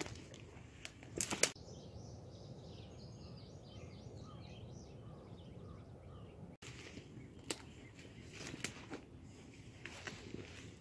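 Footsteps and rustling of someone walking through brush, with sharp snaps, for the first second and a half and again from about six and a half seconds in. Between them a small bird sings a rapid series of short high notes for about four seconds.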